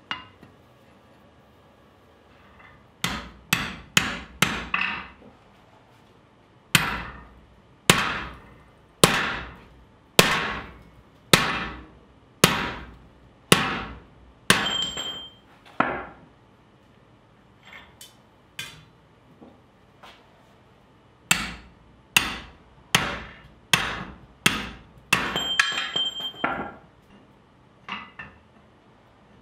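Hammer blows forging hot steel on a swage block. A quick run of five comes first, then heavy sledgehammer blows about one a second, then a few light taps and a faster run. A few blows leave a short metallic ring.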